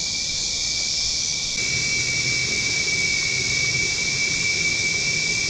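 Steady dusk chorus of insects: a constant high hiss with a shrill unbroken tone running through it, a little stronger from about a second and a half in, over a faint low rumble.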